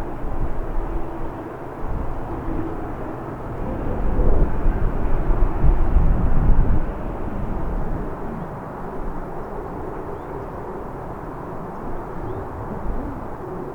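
Boeing 787-10 jet engines running with a steady rumble, mixed with strong wind gusts buffeting the microphone. The loudest gust comes about four to seven seconds in.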